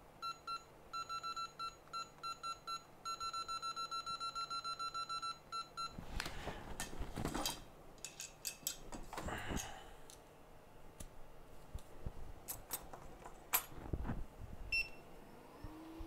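Short electronic beeps from bench equipment: a few spaced beeps, then a quick run of about twenty. After that come scattered clicks and knocks, and a steady low hum starts just before the end.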